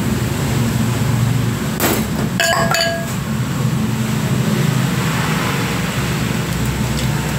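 Glass bowl clinking against a stainless steel mixing bowl several times about two seconds in, each clink leaving a short ringing tone, over a steady background hum.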